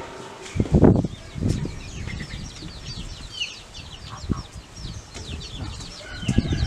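Chicks peeping, a steady run of short, high chirps, with a few dull thumps mixed in; the loudest thump comes about a second in.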